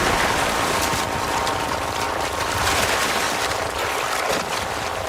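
River water splashing and churning hard as Nile crocodiles strike at wildebeest in the shallows: a steady rushing with a few sharper splashes.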